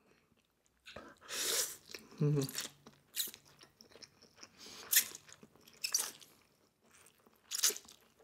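Korean sweet potato glass noodles being slurped and chewed close to the microphone: a long slurp about a second in, a brief hum, then several shorter slurps and chewing noises.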